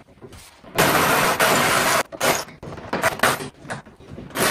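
Plastic front bumper cover of a Mk4 Toyota Supra scraping and crackling against the car as it is worked free, in one long burst about a second in, then several shorter ones.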